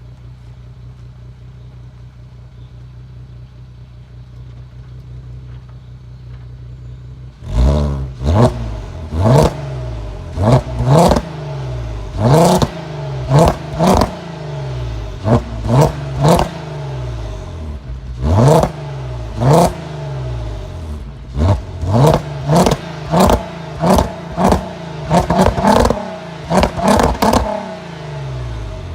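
Volkswagen Golf Mk5 R32's 3.2-litre VR6 engine on its stock exhaust, idling steadily, then from about seven seconds in revved over and over in quick throttle blips, each rising sharply and dropping back toward idle, a couple of dozen in all.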